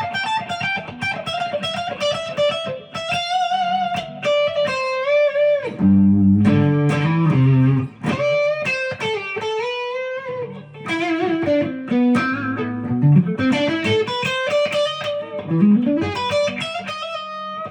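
Epiphone Les Paul Custom electric guitar played through an amplifier: quick single-note lead lines with string bends, and a lower, louder passage of notes a few seconds in.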